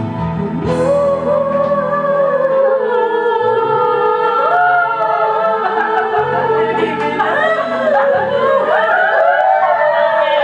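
Singing with musical accompaniment; several voices overlap in the last few seconds.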